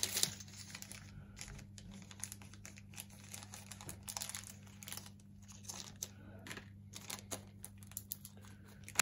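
Small clear plastic component bag crinkling in the hands as it is opened and a blue ceramic disc capacitor is pulled out of it, in irregular crackles.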